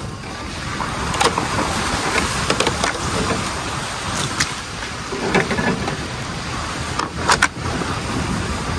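Suburban driving slowly over a rough dirt and gravel road: steady tyre and road noise with scattered knocks and rattles from the body and suspension.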